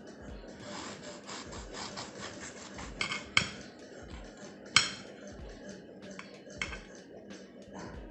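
Knife sawing back and forth through the crisp crust of a loaf of honey oat bread: a crackling rasp broken by a few sharp clicks, the loudest nearly five seconds in.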